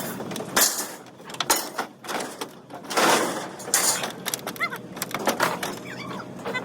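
Pieces of aluminum scrap being thrown down onto a scrap pile: an irregular run of metal clatters, clangs and crashes, the loudest about three seconds in.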